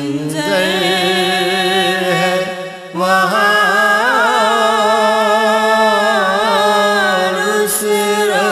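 A naat sung in long, drawn-out melodic phrases, the voice holding wavering notes over a steady low drone. It breaks off briefly about two and a half seconds in, then begins a new long phrase.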